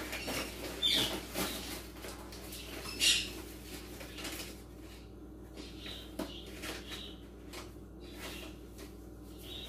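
Light, scattered knocks and rustling of kitchen things being handled while sugar is fetched, with a few short, high chirps between them; the sharpest knocks come about a second in and about three seconds in.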